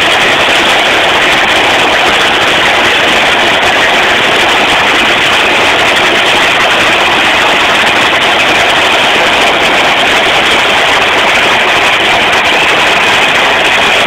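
Drag racing cars' engines running at the starting line: a steady, very loud noise that holds one level throughout, without a launch rising and fading away.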